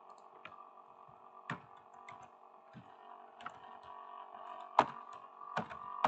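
Scattered, irregular clicks of a computer keyboard and mouse during form entry, about eight in all, the loudest a little under five seconds in, over a steady faint hum.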